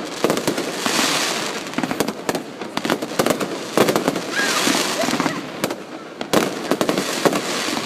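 Fireworks display: a rapid run of bangs and pops, with two stretches of dense hissing crackle about a second and four and a half seconds in.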